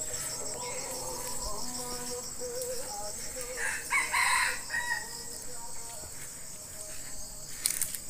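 Red junglefowl cock crowing.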